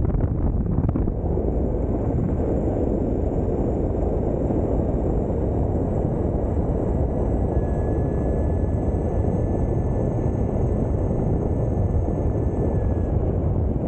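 Wind buffeting the microphone of a camera riding along on an electric mountain board at speed, a steady low rushing noise. A faint steady high whine joins about halfway through and stops near the end.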